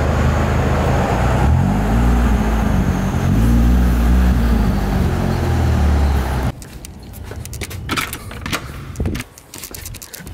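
Scion tC's four-cylinder engine and exhaust rumbling loud and low, the revs rising and falling twice. The sound cuts off suddenly about six seconds in, leaving light clicks and rustling.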